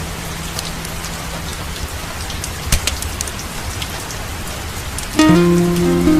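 Steady rain falling, with scattered sharp drops pattering. About five seconds in, plucked string-instrument music starts over it.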